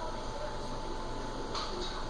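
Quiet room tone with a steady low hum and a thin constant tone, and a faint brief sound about one and a half seconds in.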